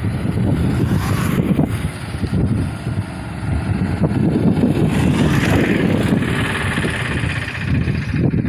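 Running engine and road noise of a slow-moving vehicle, heard from aboard: a fairly steady low rumble.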